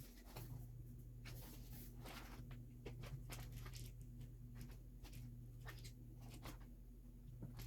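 Faint, scattered clicks and rustles of packaging being handled, over a low steady electrical hum.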